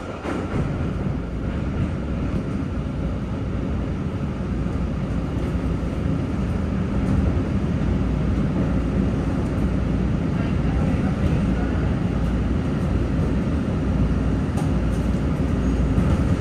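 Steady low rumble of an MBTA Blue Line subway car's wheels and running gear, heard from inside the car as the train slows along the station platform.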